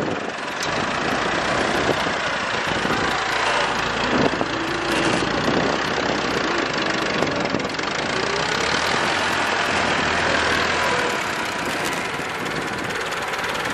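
Diesel engine of a homemade tractor-built loader running steadily as it drives forward, pushing a load of sand with its hydraulic front blade.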